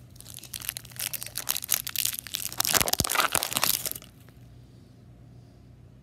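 Candy wrapper crinkling as a chocolate ball is unwrapped by hand: dense crackling that grows louder and stops suddenly about four seconds in.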